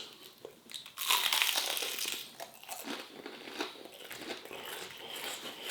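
A crunchy bite into a beer-battered onion ring about a second in, followed by quieter chewing.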